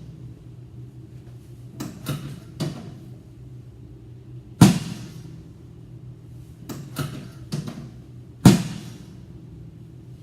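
Knocks and thuds of a chiropractic spinal adjustment on a treatment table: two runs of three light knocks, each followed by one loud thud with a short ringing tail, the thuds about four seconds apart. A steady low hum runs underneath.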